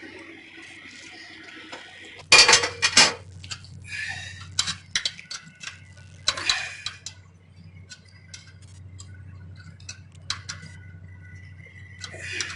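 A wrench clinking and clanking on a nut and the steel lock hardware while a bolt is tightened down. A loud clatter comes about two seconds in, followed by scattered sharp metal clinks that thin out toward the end.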